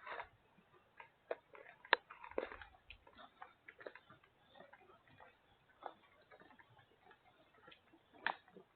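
Footsteps on a rough, rocky hiking trail: irregular faint clicks and scuffs of shoes on stone, with a sharper knock about 2 seconds in and another near the end.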